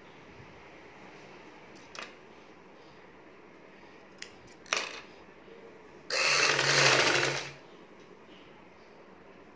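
Vidya sewing machine running in one short burst of stitching for about a second and a half, past the middle, preceded by a few light clicks as the fabric is handled at the needle.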